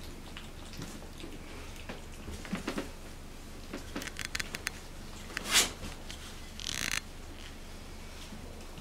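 Mittelspitz puppies moving about on a tiled floor: small clicks and scuffs of lapping and claws, a run of sharp ticks about four seconds in, then a loud short swish and a brief rustle of the fabric play tunnel as they bump into it.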